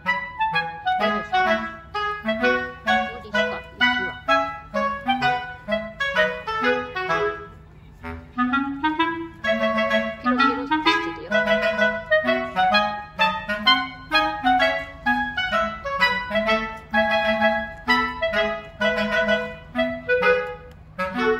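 Background music: a light tune of short, separate notes over a stepping bass line, with a brief pause about eight seconds in.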